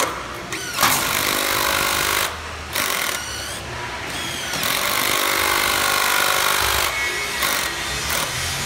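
Power screw guns of a Mantis hidden deck-clip system driving screws through clips into composite deck boards, running in short repeated bursts.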